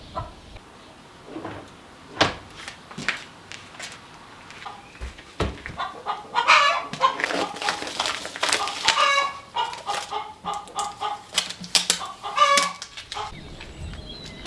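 Domestic chickens clucking in a run of short, broken calls that are busiest through the second half, with a few sharp knocks between them.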